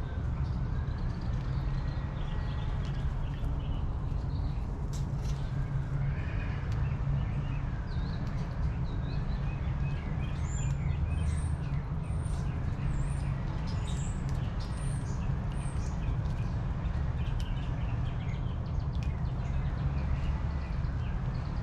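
Backyard birds calling over and over, with short high chirps clustered in the middle, over a steady low rumble.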